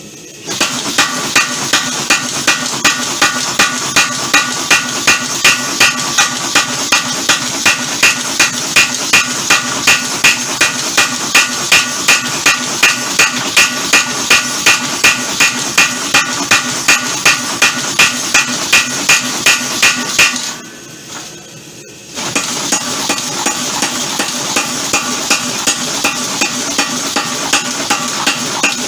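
Homemade power hammer running, its ram striking hot steel in a fast, even rhythm of about two to three blows a second, with a steady clatter between the blows. About 20 seconds in it stops for a second or two, then starts hammering again.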